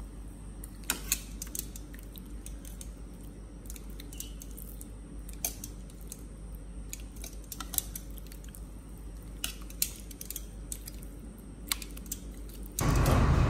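Metal kitchen tongs clicking now and then against each other and the bowl as marinated pork chops are turned, over a low steady hum. A louder sound cuts in just before the end.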